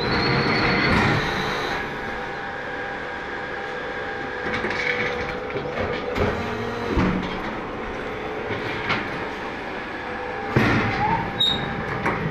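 Automatic fly ash brick plant machinery running: a steady mechanical hum with several held tones, broken by a few loud clanks about seven, ten and a half and twelve seconds in, and a brief high squeal at the start.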